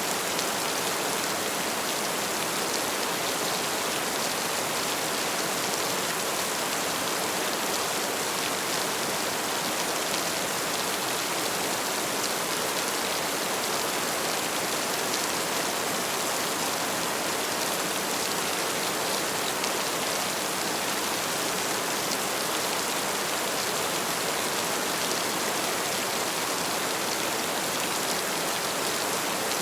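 Heavy rain falling, a steady even hiss that does not change.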